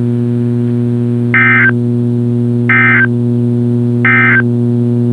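Three short Emergency Alert System end-of-message data bursts from NOAA Weather Radio, digital warble tones about 1.4 s apart, marking the close of the severe thunderstorm warning. A steady low buzzing hum runs underneath.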